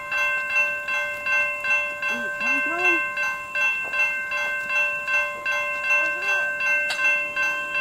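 Railroad crossing warning bell ringing in a steady, rapid pulse of about two dings a second as the crossing signals activate, warning of an approaching train. A single sharp click comes near the end.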